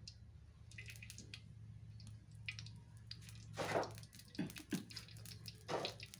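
Oil dripping from a perforated metal strainer into a hot wok holding a little oil: scattered soft drips and ticks, with a couple of louder metal clatters of the strainer and spatula about midway and near the end, over a low steady hum.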